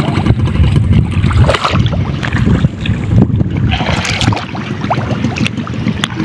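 Wind buffeting the microphone in low rumbling gusts, mixed with sloshing and squelching as legs wade through the water and mud of a flooded rice paddy.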